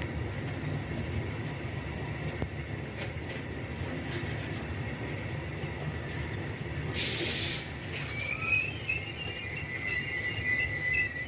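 Long freight train of open-top wagons rolling slowly past, with a steady low rumble of wheels on rail. A brief hiss comes about seven seconds in, then a wavering high wheel squeal from about eight seconds on.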